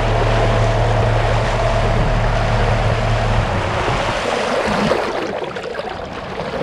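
Brushless electric motor of a DIY kayak running at full throttle: a steady hum with a higher whine over the rush of water and wind. About three and a half seconds in the motor cuts out and the water noise fades away as the kayak slows.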